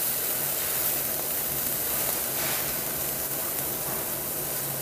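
Marinated pork ribs (dwaeji galbi) sizzling steadily on a wire grill grate over charcoal.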